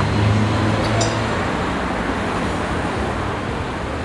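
Street traffic: cars running past, with a low engine hum that is strongest in the first second, then fades.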